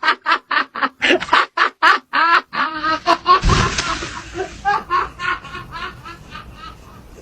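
Rapid, high-pitched cackling, about four to five short bursts a second, fading towards the end, with a brief rush of noise about three and a half seconds in.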